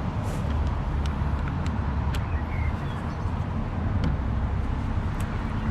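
Steady low rumble, like a passing vehicle or wind on the microphone, with scattered light clicks and taps through it, typical of hand tools on metal parts.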